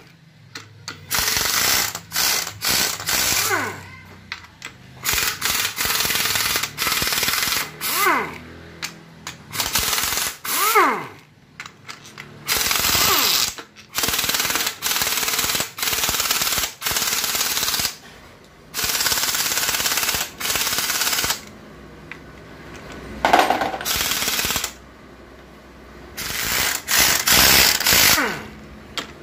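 Impact wrench hammering the 12 mm bolts out of an automatic transmission's case cover in repeated short bursts, each up to about two seconds, with pauses between. Its motor whines up and down as each burst starts and stops.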